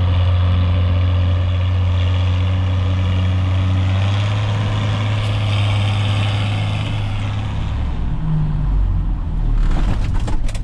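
John Deere tractor engine running steadily at working revs, then dropping to a lower, slower note about eight seconds in as the revs fall. A few sharp clicks near the end.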